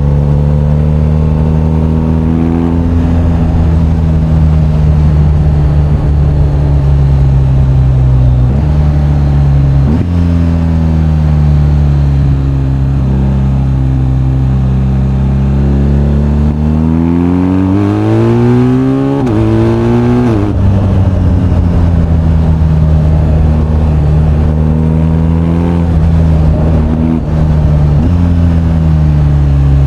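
BMW R1250GS's boxer-twin engine under way, running steadily with a couple of sudden rev changes, then revving up over about three seconds past the middle before the revs drop sharply at a gear change.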